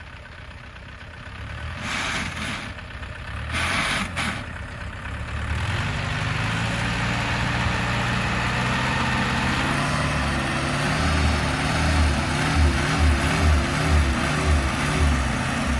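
Dump truck's heavy diesel engine revving up and holding at high revs under load, pulsing low in the last few seconds, as the loaded truck strains to pull away. Two short hisses come a few seconds in.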